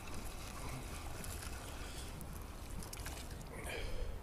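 Wind rumbling steadily on the microphone, with light handling clicks and a brief louder rustle near the end.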